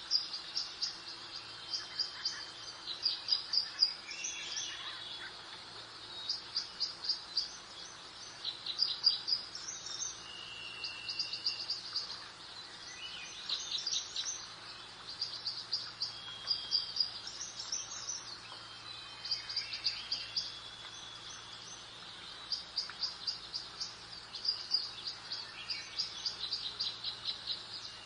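Songbirds singing: short, high, rapid trilled phrases repeating every second or two, with occasional level whistled notes, over a steady soft background hiss.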